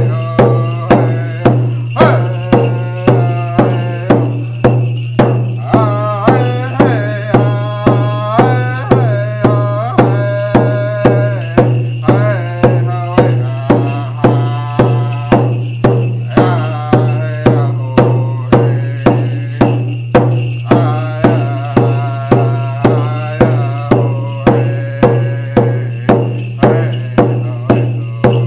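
A Native American hand drum struck with a beater in a steady beat of about two strokes a second, with a man singing a wavering song over it.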